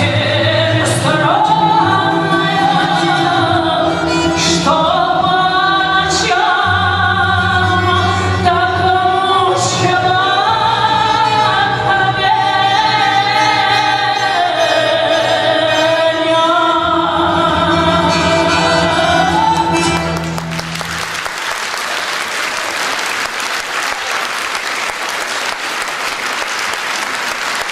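A woman singing a Russian romance with a folk ensemble of balalaikas and bayan. The song ends about twenty seconds in, and the audience breaks into applause.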